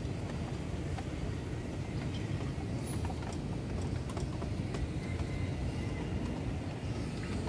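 A chicken pecking at a small feed cup, making scattered light taps over a steady low rumble.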